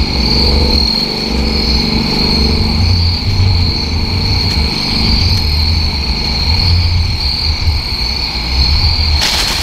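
Insects trilling steadily in a high, even chorus over a low, uneven rumble, with a brief rustle just before the end.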